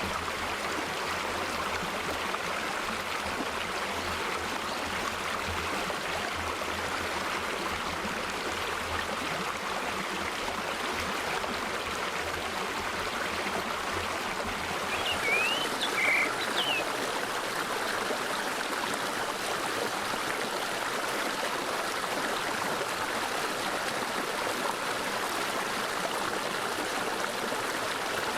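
Mountain valley stream flowing with a steady rush of water. About halfway through, a bird gives a few short chirps.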